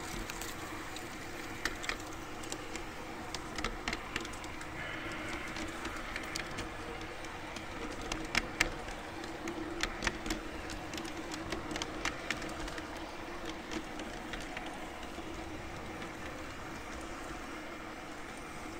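Garden-railway model train running along brass track: a steady electric-motor hum with irregular sharp clicks of the wheels passing over rail joints and switch points. The clicks bunch through the middle and are loudest a little past halfway.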